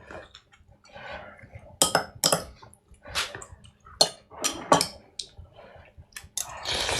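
Dishes and utensils being handled: a string of irregular knocks and clatters, some ringing briefly, running into a longer, denser clatter near the end.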